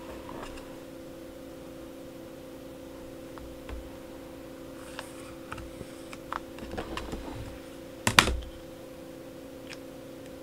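Light clicks and taps of a clear acrylic ruler and fabric marker being handled on a cutting mat, with one sharper clack about eight seconds in. A steady low hum runs underneath.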